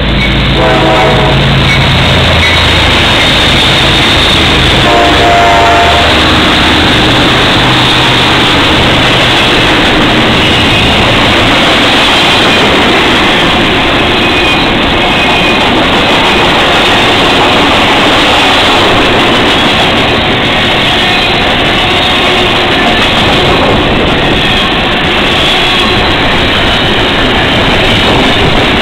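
CSX diesel locomotives of a double-stack container train pass at speed with a low engine drone, the horn sounding briefly about a second in and again around five seconds. The stack cars then roll by with a steady, loud rush of wheel and rail noise.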